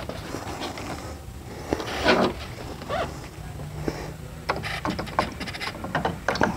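Needle-nose pliers clicking and scraping against a plastic blade fuse, a 30-amp fuel pump fuse being twisted back and forth to work it loose from an automotive fuse box: a string of small, irregular clicks.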